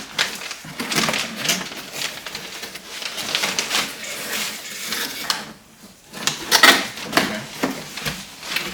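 A cardboard box being opened and its packing material handled: irregular rustling and crinkling with scattered clicks and taps, pausing briefly a little past the middle.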